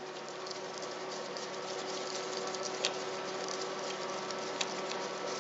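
Steady hiss and faint hum of a quiet workshop, with a couple of light clicks as a compression tester hose is handled and fitted into a rotary engine's spark plug hole. The engine itself is not cranking.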